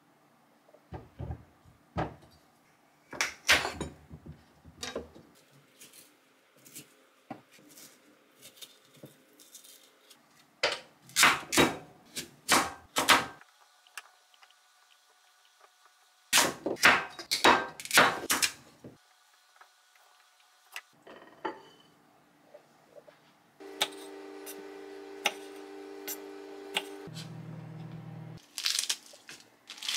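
Knife cutting through a kabocha squash and knocking on a wooden cutting board, in several bursts of sharp knocks and crunches. Late on, a steady hum runs for about five seconds and drops lower in pitch before it stops.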